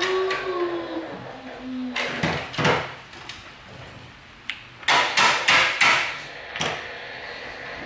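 Mechanical keyboard keys being pressed: a couple of sharp clacks, then a quick run of about five clacks and one more after. A brief falling tone is heard at the start.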